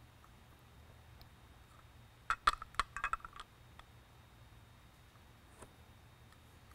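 Optic lens of a PAR-36 LED spotlight being turned by hand against its metal housing to realign it, giving a quick run of small clicks and clinks about two and a half seconds in. Otherwise only a faint steady room hum.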